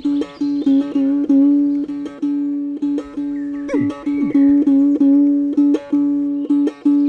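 Ektara, a one-stringed Bengali folk lute, plucked in a steady quick rhythm on one ringing drone note, about three plucks a second. About four seconds in, a sliding tone falls sharply.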